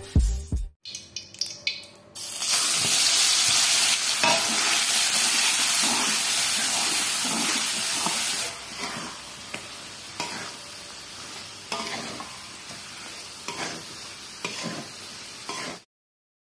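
Red chili paste sizzling in hot oil in an aluminium wok while a metal spatula stirs it. About eight seconds in the sizzle drops much quieter, with scattered scrapes and taps of the spatula against the wok, then the sound cuts off shortly before the end.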